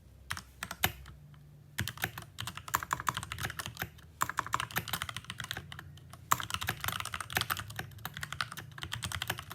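Mechanical keyboard being typed on, its switches clacking: a few single key presses, then fast runs of keystrokes. The switches were sprayed with RP7 lubricant, and they still clack, with no quieting from the spray.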